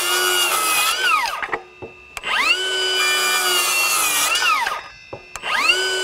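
Milwaukee M18 FUEL 6-1/2-inch brushless circular saw cutting through a 2x6 in short passes. Its high whine holds steady at close to its 6,000 rpm, dipping only slightly under load, and falls away as the trigger is let go about a second and a half in and again near 5 seconds. It starts up again about 2 seconds in and once more just before the end.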